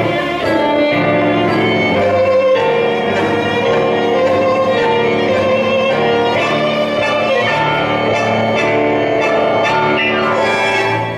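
Live tango played by a trio of piano, bandoneon and violin, with the bowed violin standing out.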